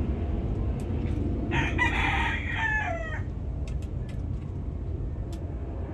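A rooster crows once, about a second and a half in, one call of about a second and a half that drops in pitch at the end, over a steady low rumble. A few faint clicks come later.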